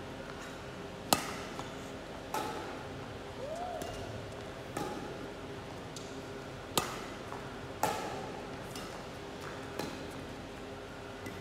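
Badminton rackets striking a shuttlecock: about six sharp, irregularly spaced hits, the loudest about a second in, each echoing briefly in the hall. One short rising-and-falling squeak comes near the middle.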